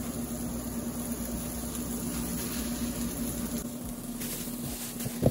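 Chicken pieces frying in hot coconut oil in a pan, a steady sizzle over a constant low hum, with a short knock about five seconds in.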